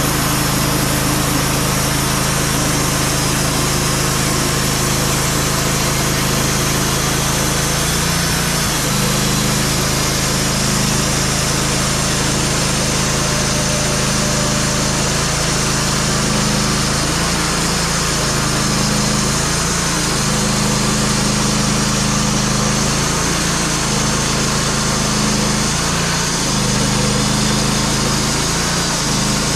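Band sawmill running under load, its engine driving the blade through a black oak log. From about eight seconds in, the engine note keeps dipping and recovering as the blade is pushed through the heavy cut.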